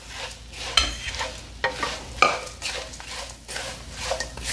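A black spatula stirring thin poha (flattened rice) flakes into hot oil tempering with peanuts and roasted gram dal in a dark wok. Dry flakes rustle and the spatula scrapes the pan in irregular strokes, with some sizzling from the oil.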